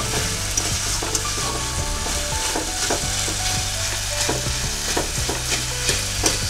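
Chopped elephant yam stems frying in spiced oil in an aluminium kadai, sizzling steadily while a metal spatula stirs them and scrapes the pan with irregular clicks and scrapes.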